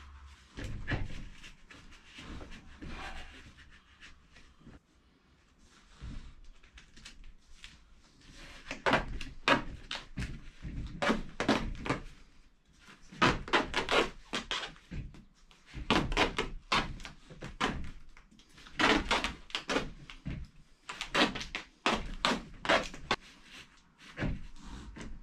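Duct tape being pulled off the roll in short rips, in bursts every two to three seconds, as a shop-vac hose is taped into corrugated drain pipe. Knocks and rustles from handling the hose and pipe, with a sharp knock about a second in.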